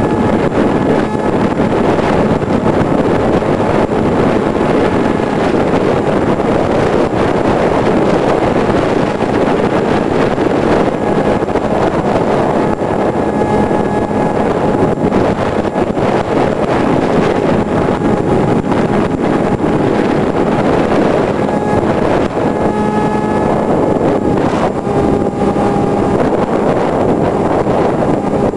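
Loud, steady rush of airflow over the microphone of a camera riding on a Multiplex EasyStar RC plane in flight, with the thin whine of the plane's electric motor and propeller fading in and out several times.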